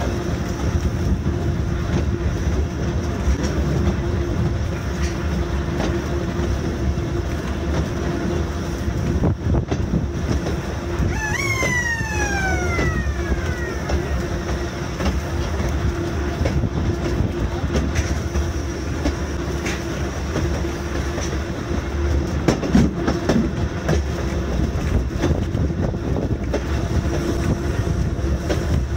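Running noise of a Volk's Electric Railway two-axle car on its narrow-gauge third-rail track: a steady rumble of wheels on rail with wind on the microphone. A falling whine comes about a third of the way through, and a few clacks from the wheels over rail joints and points follow later.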